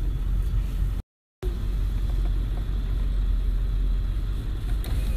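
Steady low rumble of a car heard from inside the cabin, engine and road noise, broken by a brief total dropout about a second in.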